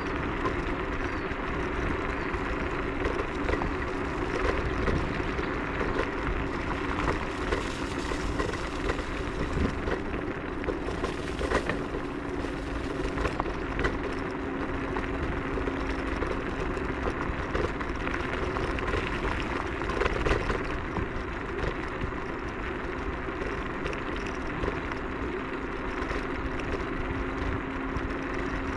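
Techlife X7S electric scooter ridden along a forest track: steady tyre and wind noise with a faint steady motor hum, and occasional knocks and rattles over bumps.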